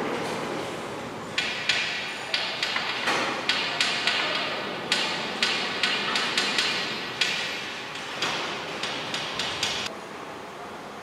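Hammer blows on metal: an irregular series of about twenty sharp strikes, each with a short ringing tail. They start about a second in and stop about a second before the end.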